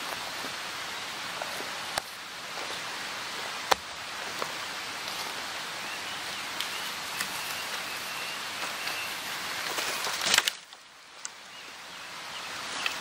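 Steady hiss of rain with a few sharp ticks. The hiss drops away abruptly about ten and a half seconds in, then slowly builds back.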